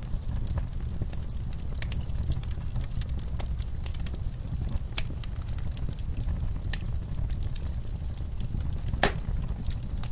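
Wood fire in a fireplace crackling, with irregular sharp pops over a steady low rush of flames; the loudest pop comes about nine seconds in.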